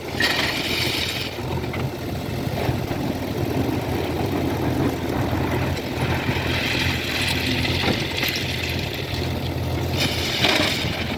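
Diesel engine of heavy machinery running steadily, with stretches of rushing noise near the start, in the middle and again near the end.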